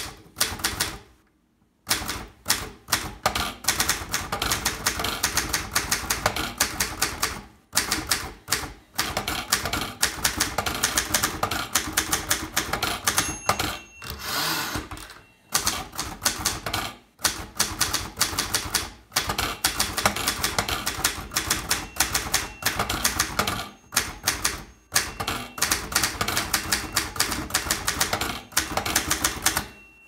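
Zeta manual typewriter made by Zbrojovka Brno, typed on fast: rapid runs of key and typebar strikes clacking, broken by short pauses every few seconds.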